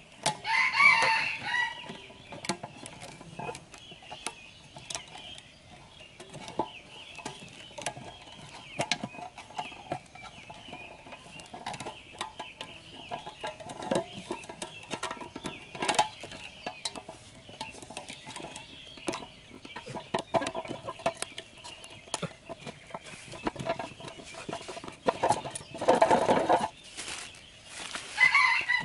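Chickens clucking and calling, loudest about a second in and again near the end, over small clicks and rustles of hands working string around a metal tin.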